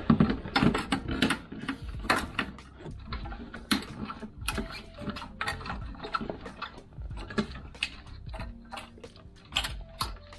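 Hand tools clicking and knocking against metal in irregular strokes as they work the air-suspension compressor's mounting nuts and studs.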